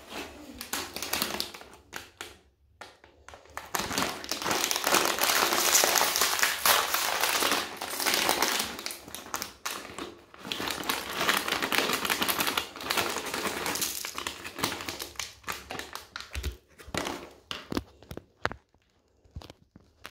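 Crinkly plastic pretzel bag being handled and shaken, a dense crackling rustle. Near the end, a run of separate light taps as pretzels drop onto the floor.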